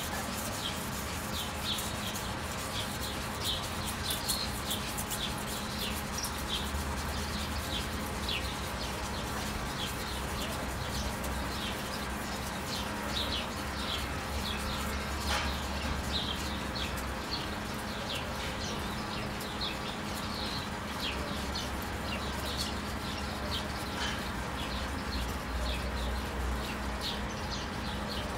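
Cheap single-bevel (chisel-ground) knife blade being stroked back and forth on a wet sharpening stone, a repeated scraping, while birds chirp over a steady low hum.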